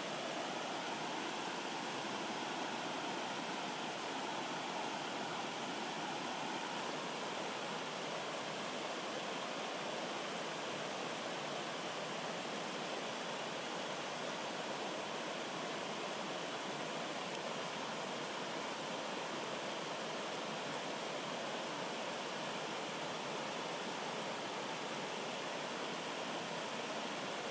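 Rocky stream running over small cascades between boulders: a steady, even rush of water.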